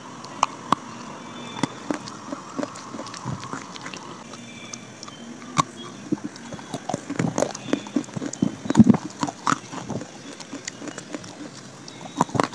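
Pieces of dry clay being bitten and chewed close up: a run of sharp, irregular crunches and cracks, densest and loudest from about seven to ten seconds in.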